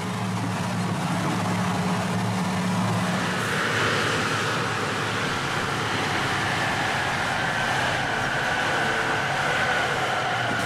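Heavy Ford truck driving along a dirt track: steady engine running with tyre and road noise. About three seconds in, the low engine note gives way to a broader hiss with a faint whine.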